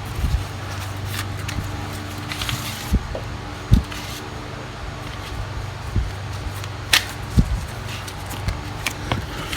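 Scattered light clicks and knocks of hands working a Briggs & Stratton lawnmower recoil starter, pulling it out as far as it goes, over a steady low hum.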